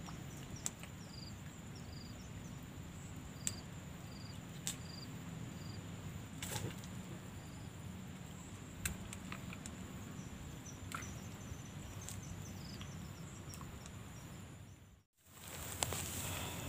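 Rural waterside ambience: a steady high insect drone with short, high chirps repeating at intervals and a few sharp clicks from handling the fishing rod and line. The sound cuts out for a moment near the end.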